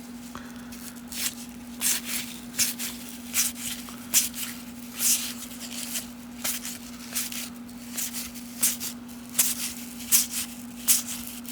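1990 Topps baseball cards being flipped by hand one after another, a short papery swish roughly every half second to a second, over a steady low hum.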